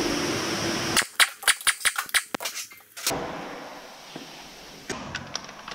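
A pneumatic impact wrench running with a steady whir for about the first second, then a quick string of sharp metallic clicks and knocks from tools and parts on a bare diesel engine block, lasting about two seconds. A few fainter clicks come near the end.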